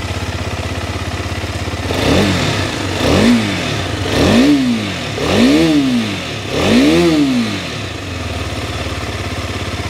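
Husqvarna Vitpilen 250's single-cylinder engine with its stock exhaust, idling in neutral. It is then revved in five quick throttle blips about a second apart, each rising and falling in pitch, and it settles back to a steady idle.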